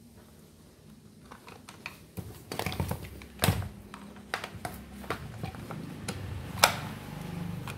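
Scattered clicks and knocks of hand tools and parts being handled while a rotary hammer drill is taken apart, with a sharper click about three and a half seconds in and another near the end.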